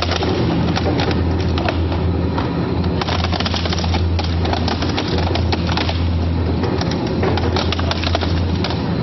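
Twin-shaft shredder crushing a plastic basin between its hooked blades: a steady low motor hum under dense, irregular cracking and snapping as the plastic breaks apart.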